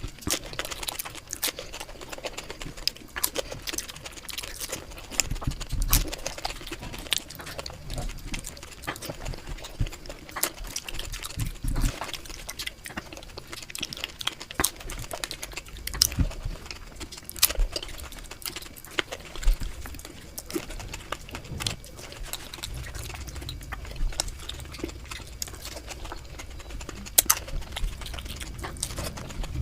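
Close-up eating sounds: a rapid, irregular run of chewing, crunching, smacking and wet mouth clicks.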